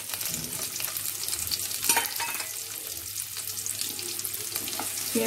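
Chopped onion sizzling and crackling in hot mustard oil in a non-stick kadai as it starts to fry, stirred with a spatula, with one sharper click about two seconds in.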